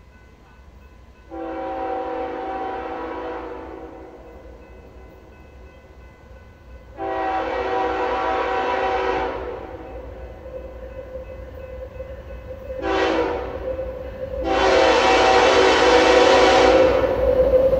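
BNSF diesel freight locomotive's air horn sounding the grade-crossing signal as the train approaches: two long blasts, one short, then a final long one, getting louder as the locomotive nears. The rumble of the oncoming train builds under the last blast.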